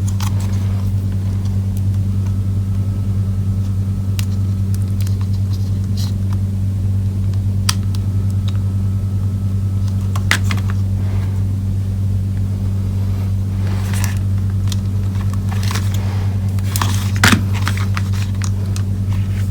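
Steady low electrical hum from bench equipment, with scattered small clicks and scrapes of a soldering iron and tools working on a circuit board, a few louder clicks coming together near the end.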